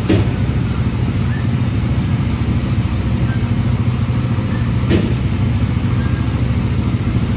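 Steady low motor hum, with a brief knock right at the start and another about five seconds in.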